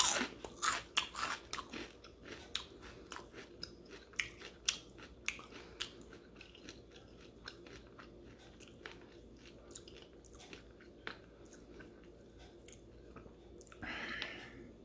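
A person biting into and chewing crunchy battered, deep-fried sand fleas (mole crabs): a run of sharp crunches, loudest in the first couple of seconds, then thinning out to scattered crunches.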